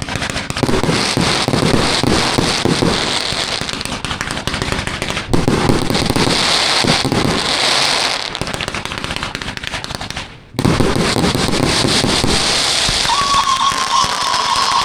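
618-shot firework compound cake firing a dense, rapid stream of shots with crackling. Near the end a high whistling tone joins the shots, sinking slightly in pitch.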